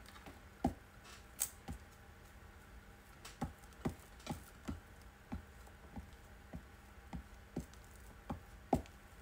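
Glue stick dabbed and rubbed along the edge of a paper page on a cutting mat: a string of short soft taps, irregular, about two a second.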